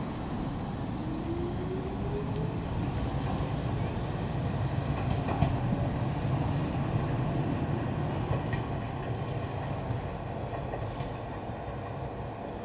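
Kobe Electric Railway electric train running through the station. A rising motor whine comes in the first few seconds, and wheels click over rail joints. The sound builds to a peak midway and then eases off.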